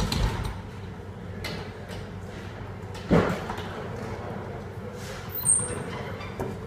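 A few dull knocks and bumps, a sharp one at the start and a louder one about three seconds in, over a steady low hum.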